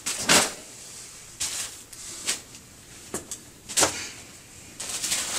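Tissue paper and plastic wrapping rustling and crinkling in several short bursts as clothing is pulled out of a cardboard box.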